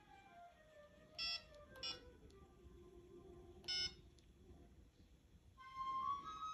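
Three short keypress beeps from a Motorola StarTac flip phone's keypad as digits are dialled: about a second in, just under two seconds in, and near four seconds. Soft background music with a flute melody runs underneath and grows louder near the end.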